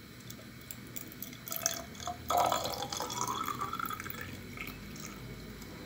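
Hot water poured from a steel saucepan into a small spray bottle: a thin stream trickling and splashing into the narrow neck, loudest from a couple of seconds in, then tailing off into drips.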